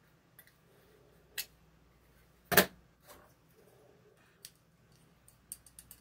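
Screwdriver and electric water heater thermostat being handled while its wires are swapped over: scattered small metallic clicks and taps, with one much louder knock about two and a half seconds in and a quick cluster of clicks near the end.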